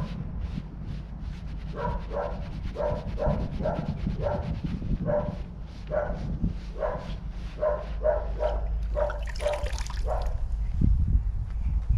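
A dog barking over and over, about two to three barks a second, starting about two seconds in and stopping about ten seconds in.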